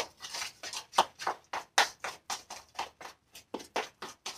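A utensil beating protein pancake batter in a bowl: quick, uneven clicking scrapes against the bowl, about four strokes a second.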